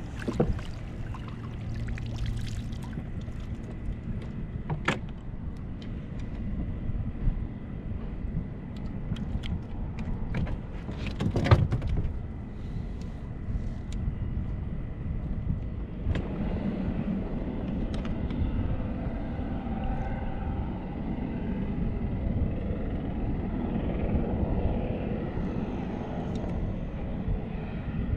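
Wind and lapping water around a fishing kayak, with scattered knocks and clicks of tackle and a landing net being handled, and a louder sudden rush of noise about eleven seconds in. From about sixteen seconds a steadier low rumble with a faint hum joins in.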